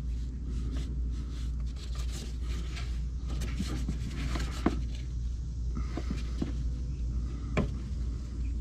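Hand working the plastic electrical connector off a windshield washer pump on the reservoir: scattered small plastic clicks and knocks, a couple of them sharper, over a steady low hum.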